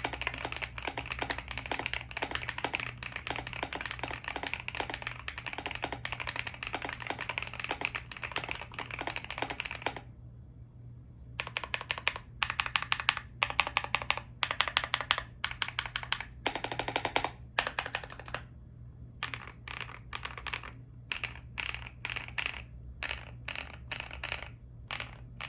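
Mechanical keyboard typing on a GMK67s with factory-lubed Leobog Greywood V4 switches, PBT Cherry-profile keycaps and a foam-filled case: continuous fast typing for about ten seconds. After a short pause come separate bursts of rapid repeated key presses, testing the keyboard's stock stabilized keys.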